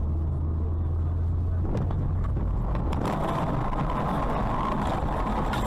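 Car driving in highway traffic, heard from inside the cabin: steady engine and tyre noise. About three seconds in it turns louder and hissier.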